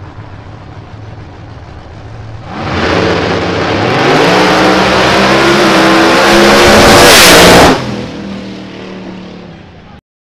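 Two drag cars, a Lexus-bodied race car and a pickup truck, idling at the start line, then launching at about two and a half seconds and accelerating hard at full throttle, the engine pitch rising. The sound is loudest near the end, drops off sharply, fades, and cuts out.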